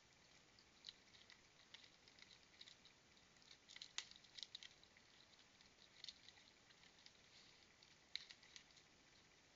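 Faint, irregular scratching and clicking of a raccoon's claws on tree bark and a plastic tube bird feeder as it hangs on and feeds. It is loudest in a cluster about four seconds in, with smaller flurries later on.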